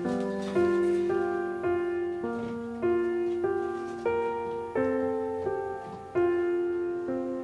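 Slow, gentle solo piano music, a new note or chord struck about every half second and left to ring and fade.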